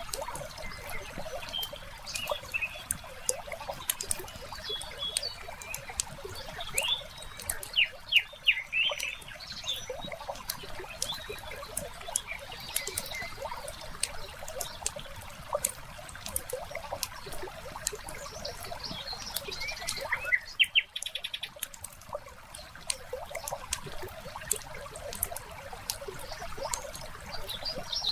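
Wood fire crackling in a fireplace, with frequent sharp irregular pops over a soft hiss. Small birds chirp now and then, in a cluster about eight seconds in and again around twenty seconds.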